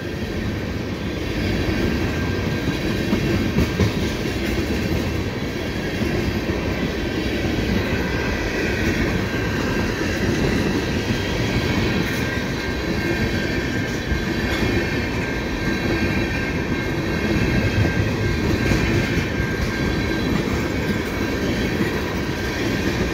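Tank cars of a CN freight train rolling past close by: a steady rumble of steel wheels on the rails, with a faint steady high whine over it.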